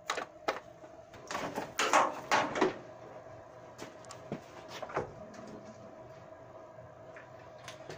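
A run of metal and plastic clicks, knocks and scrapes as a car's bonnet release cable is unhooked from its latch and the front-end panel is handled. The knocks are busiest in the first three seconds and thin out after about five.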